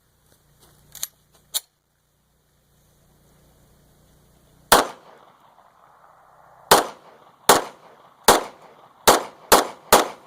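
CZ 75 9mm pistol firing seven shots outdoors. The first comes alone, and after a pause of about two seconds the other six follow, quickening from almost a second apart to under half a second. Two short, quieter clicks come before the shooting.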